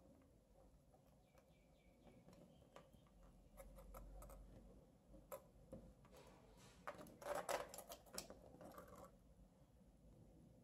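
Faint handling noise: soft clicks and scratches of fingers working hookup wires and the leads of a plastic battery holder on a breadboard, with a short run of louder clicks about seven seconds in.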